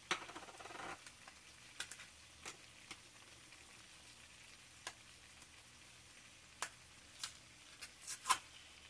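Seasoning shaken from a container into a cooking pot: a brief rattling shake in the first second, followed by scattered sharp clicks and taps of kitchen utensils against the pot.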